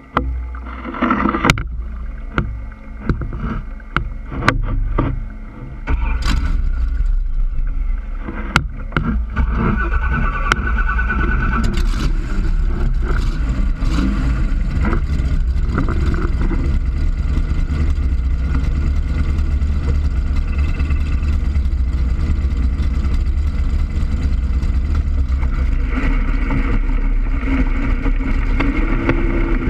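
5.7-litre V8 engine driving a radial surface-drive paddle wheel on a boat. Several sharp knocks over the first eight seconds, then from about six seconds in the engine runs steadily under the churning of the paddle wheel in the water. Near the end the engine note rises as the boat speeds up and the wheel throws up spray.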